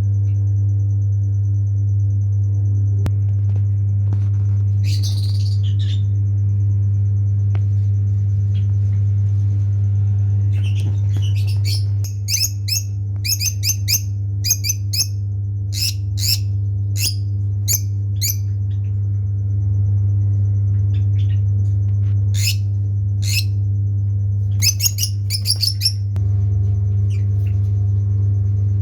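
Caged birds giving short, sharp chirps, in a brief burst and then in clusters of rapid calls through the middle and again later, over a loud steady low hum.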